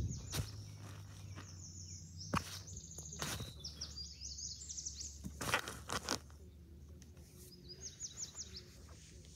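A songbird singing several quick runs of high chirps, with a few sharp knocks in between.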